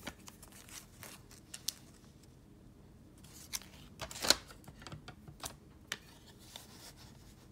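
Hard plastic PSA graded-card slabs clicking and clacking against each other as they are handled and stacked: a scatter of light taps, with the loudest clack about four seconds in.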